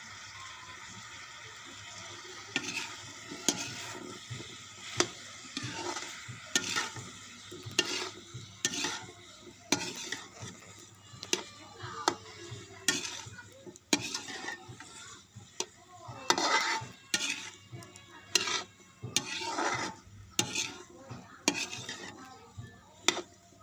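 Food frying in a pan while being stirred: a spatula scrapes and knocks against the pan about once a second over a steady sizzle.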